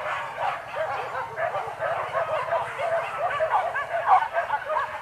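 A pack of boar-hunting dogs baying and yelping without pause: many high, overlapping calls, several a second, from many dogs at once.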